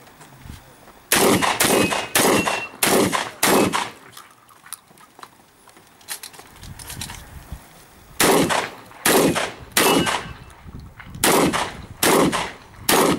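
Shotgun firing in quick strings: five shots about half a second apart, a pause of a few seconds, then two more strings of three or so shots. A short metallic ring follows some of the shots.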